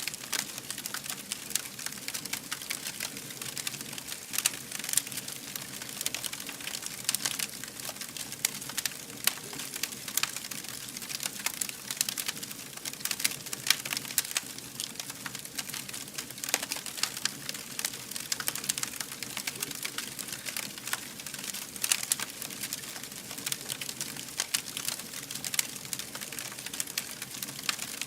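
Campfire crackling, with many irregular sharp pops and snaps over a steady hiss.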